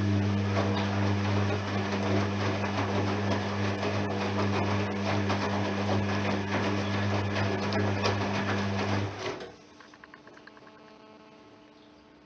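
Washing machine drain pump running with a steady electric hum and a gurgling rattle of water and air, stopping abruptly about nine seconds in; afterwards only a faint hum and drips remain.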